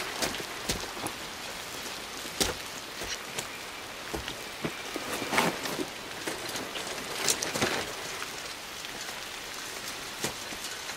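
Steady hiss of rain, with scattered short knocks and clinks.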